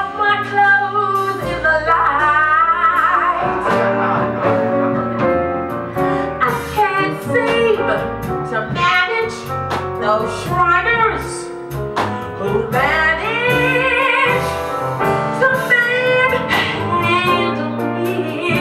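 A woman sings a Broadway show tune live with wide vibrato and sweeping runs, backed by a small band with electric bass.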